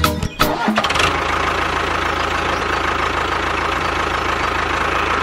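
Music with a beat for about the first second, then an engine starts and runs steadily at an even idle.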